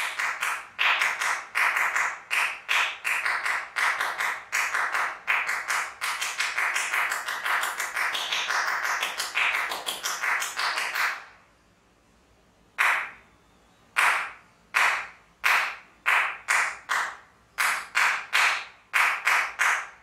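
Hands clapping, fast and even at about four claps a second for roughly eleven seconds, then a pause of about a second and a half, then slower, looser claps at about two a second. The claps trigger the par lights' sound-active mode.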